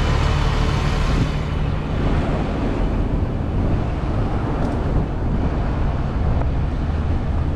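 A heavy vehicle's engine running close by: a steady low drone with road noise over it.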